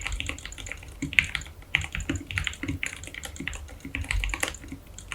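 Typing on a modded Leopold FC660M mechanical keyboard: a fast, irregular run of keystroke clacks, several a second, with a few deeper thuds among them.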